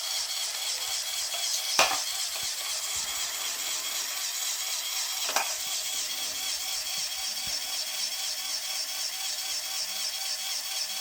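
Lego Technic Arocs 42043's electric motor and plastic gearing whirring steadily, with two sharp clicks about two seconds and about five seconds in.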